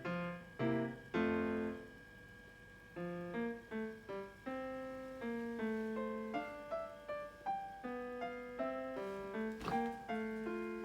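Background piano music: a slow line of single notes and chords, each note fading after it is struck, with a short lull about two seconds in.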